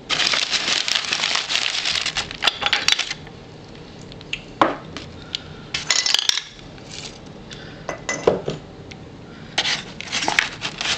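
Small hard objects being rummaged through and handled in a box: a dense rustling scrabble for about the first three seconds, then scattered clinks and knocks as items are picked up and set down.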